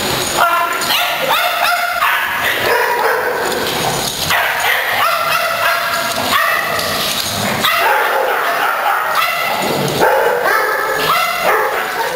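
Several dogs barking in play, short high barks coming one after another almost without a break.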